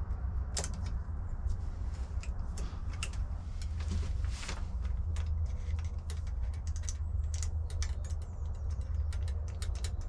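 Scattered small metallic clicks and ticks from a hand tool and chain guide parts being handled and fitted at a mountain bike's bottom bracket, over a steady low hum.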